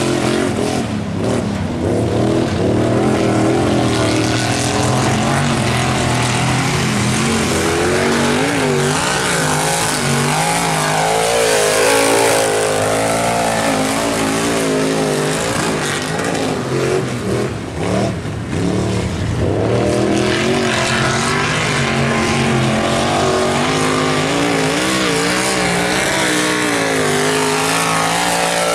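Mud-racing trucks' engines revving hard as they run through a mud pit, the pitch rising and falling with the throttle, with a brief dip in the middle.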